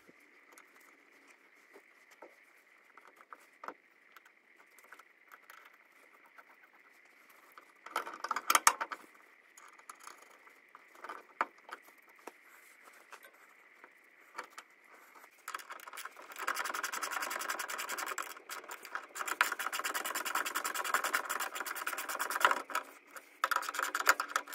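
Small metal clinks and handling as a nut is threaded onto an anti-roll bar drop link, with a short louder clatter about a third of the way in. From about two-thirds through, a wrench runs the nut down with a fast, even rattle of clicks.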